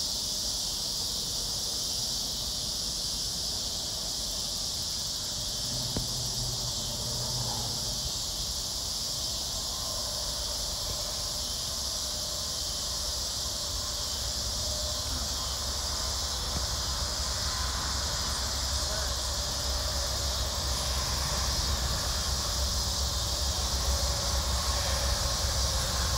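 Steady, high-pitched chorus of insects chirring without a break, typical of crickets on a late-summer evening, over a low rumble that grows louder in the second half.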